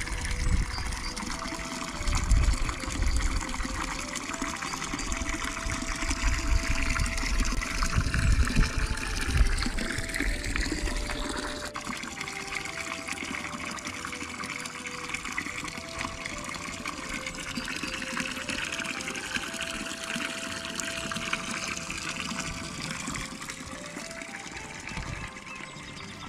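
Spring water pouring from the metal spout of a stone fountain into a small pebble-lined pool: a steady splashing trickle. Low rumbles of wind on the microphone through roughly the first half.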